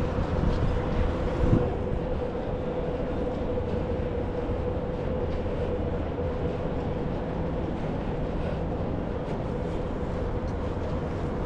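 City street ambience: a steady low rumble and noise with a constant hum tone running through it, and a single short knock about a second and a half in.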